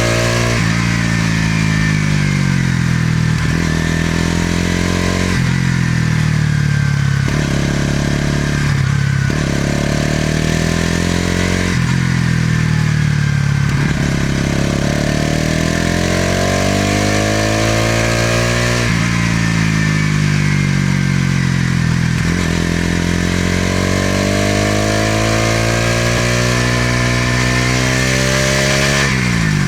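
Bajaj Pulsar NS200 motorcycle's single-cylinder engine and exhaust under way. The revs climb and drop off abruptly several times, like upshifts under acceleration, with stretches of easing off in between. A longer climb comes in the second half, and the revs drop again just before the end, over a steady rushing of wind and road noise.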